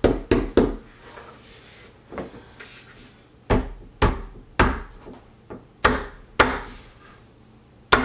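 Wooden flat-pack changing-table panel being struck by hand to knock it into its slot: about ten sharp wooden knocks, three in quick succession at the start, then single and paired blows about half a second apart.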